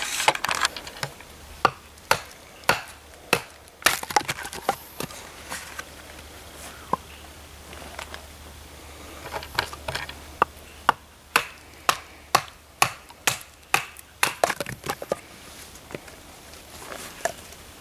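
A knife being batoned through a length of firewood: repeated sharp wooden knocks on the spine of a Benchmade Bushcrafter knife, irregular and often one or two a second, with the wood cracking as it splits.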